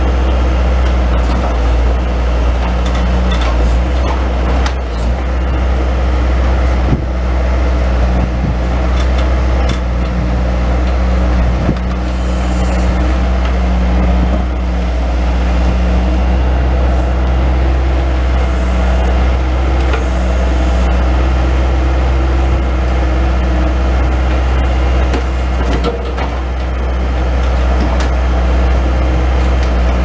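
Bobcat S185 skid-steer loader's diesel engine running steadily under load while it powers the hydraulics of a 911 backhoe attachment digging. The engine's note shifts a little as the hydraulics work, with a few sharp knocks.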